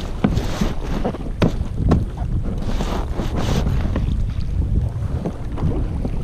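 Wind buffeting the microphone on a kayak at sea, a steady low rumble, with choppy water sloshing and slapping against the plastic hull. There are a few sharp knocks in the first two seconds and a hissing splash around the middle.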